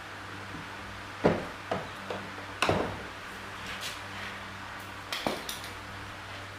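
Tools and metal parts knocking and clinking during hand repair work, about six sharp hits in two groups, over a low steady hum.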